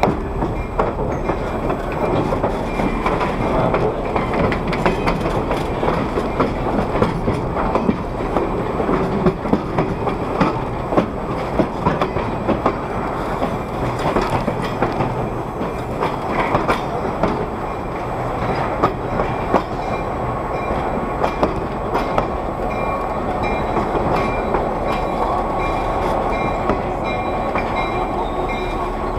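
Caboose rolling slowly along yard track, its wheels clicking and knocking over the rail joints and its body rattling, over a steady low rumble. A faint high whine joins in over the last several seconds.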